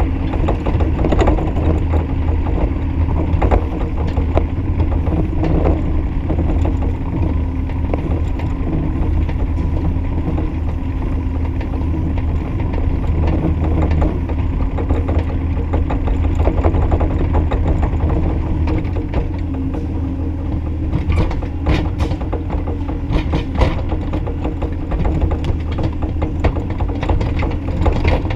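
Bobcat E35i compact excavator running steadily with a low engine hum, with repeated clanks and knocks from the machine's working parts, coming more often near the end.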